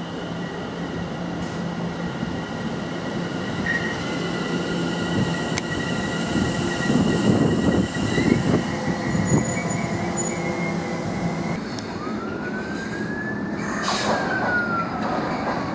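London Overground class 710 electric multiple unit running into the platform: steady electric traction whine over wheel and track rumble, getting louder as the train comes alongside. Near the end, after a sudden change, a high squeal rises and then falls in pitch as a freight train approaches.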